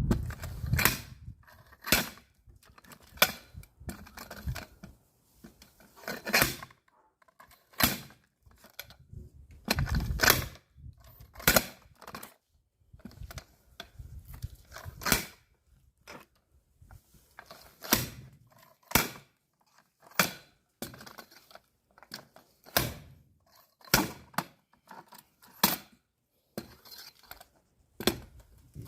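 An axe striking firewood again and again, splitting logs: a steady run of sharp cracking blows, unevenly spaced about a second or two apart.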